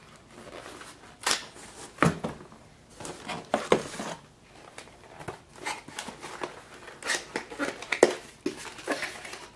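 Small cardboard boxes being handled and set down inside a large cardboard shipping carton: scattered rustling and crinkling with several light knocks.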